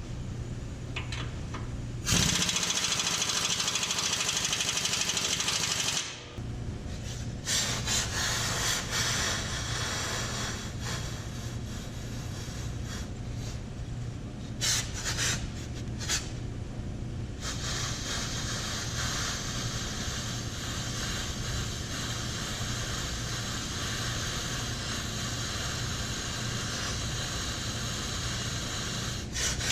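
Tractor engine running steadily, with a louder rushing noise that comes and goes over it, loudest for a few seconds near the start.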